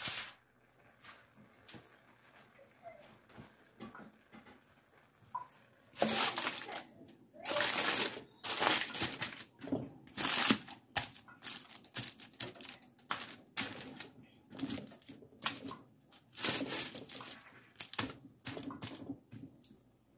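Aluminium foil crinkling in irregular bursts as it is pressed and tucked around the rim of a lidded pot. It starts about six seconds in.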